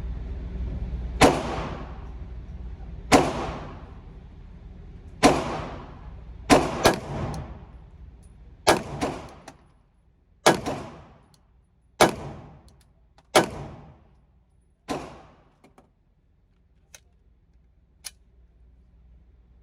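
Glock 19 9mm pistol firing a string of about ten shots, mostly one every second and a half, with two quick pairs, each shot ringing out briefly. A few faint clicks follow near the end.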